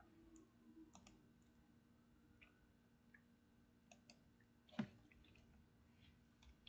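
Near silence with a faint low hum and scattered faint clicks, and one sharper, louder knock just under five seconds in.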